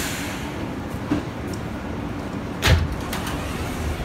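Alstom-built R160A subway car running, heard from inside the car as a steady rumble, with a few light clicks and one sharp, loud clunk about two and a half seconds in.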